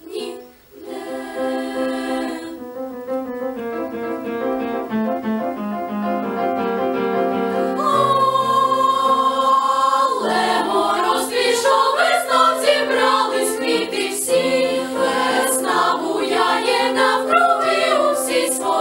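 Choir singing with piano accompaniment: the piano plays alone for about the first ten seconds, then the choir's voices come in over it.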